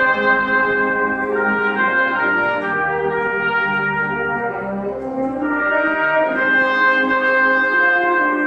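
Concert band of woodwinds, brass and percussion playing, sustaining full chords that change every second or so.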